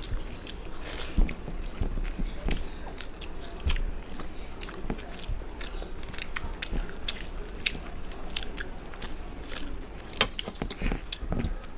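People eating rice and fish curry by hand: close-up chewing with irregular wet mouth clicks and smacks, and one sharp, louder click about ten seconds in.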